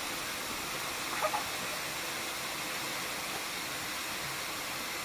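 Steady rushing hiss of high-pressure water jets spraying from the dam's outlet valves.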